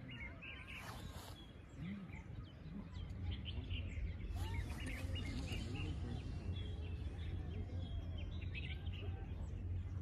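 Small birds chirping and twittering, many short calls overlapping, over a steady low outdoor rumble that grows louder about three seconds in.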